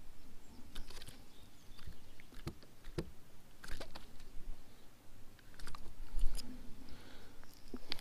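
Scattered light clicks, taps and rustles of handling on a boat's carpeted deck as a small smallmouth bass is swung and flops about in hand, with a few dull low thumps about six seconds in.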